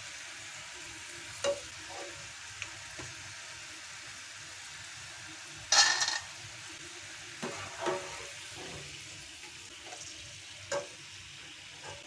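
Cornflour-coated corn kernels deep-frying in oil, a steady sizzle that eases slightly as the frying nears its end and the bubbling settles. A steel slotted spoon clinks several times against the pan and a steel strainer plate as the kernels are scooped out, loudest about six seconds in.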